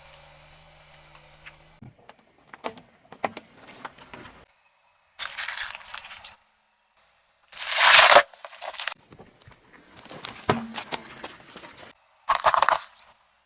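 Objects crushed under a car's tyres, in several short cut-together takes: crackling, crunching and clinking, with bursts of noise. The loudest burst comes about eight seconds in. A faint low hum runs in the first two seconds.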